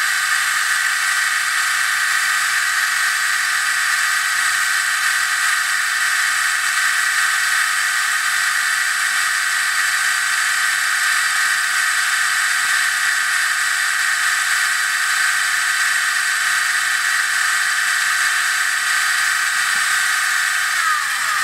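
ORCA Blitreme 3 brushless RC motor with a 32-tooth pinion, driving a load motor through gears at full throttle on a motor dyno at about 21,600 rpm: a steady high-pitched motor-and-gear whine that starts winding down right at the end.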